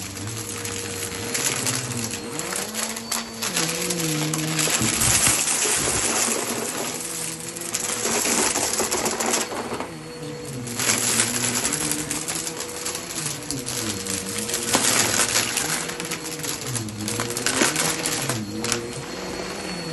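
Vacuum cleaner running over a rug, with a steady motor tone, lower tones that dip and rise in slow sweeps, and constant crackling of grit and debris being sucked up.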